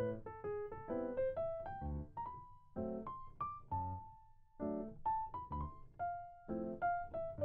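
Background piano music: a melody of single notes played over chords, with one longer held note about four seconds in.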